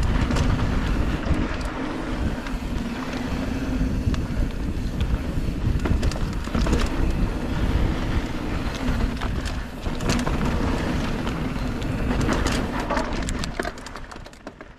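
Polygon Siskiu T7 mountain bike riding fast down a dirt singletrack, heard from a bike-mounted camera: loud wind rush on the microphone over the rumble of knobby tyres on hard dirt, with frequent rattles and clicks from the bike over bumps. The sound fades out near the end.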